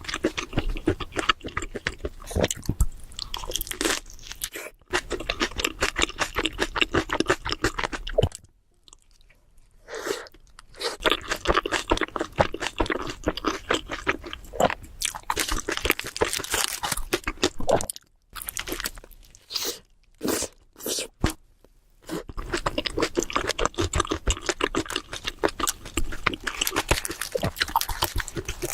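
Close-miked chewing of a Subway sandwich: bread crust and fillings crunching and squishing in dense, rapid runs. There are short pauses between bites, the longest about eight seconds in.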